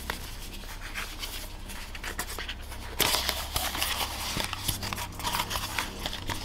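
Cardboard packaging being handled: a small white cardboard accessories box lifted out and its flaps folded open, with paper rustling and small clicks and taps, louder from about three seconds in. A low steady hum runs underneath.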